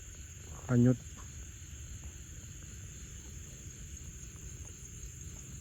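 Night insects chirring in a steady, high-pitched chorus, over a low background rumble.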